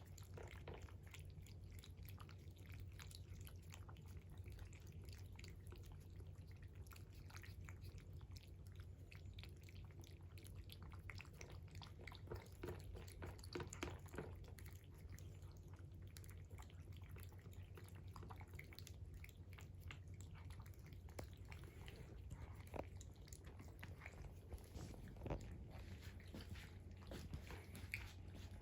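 Cats eating, faint irregular chewing and small clicks at the food, over a steady low hum.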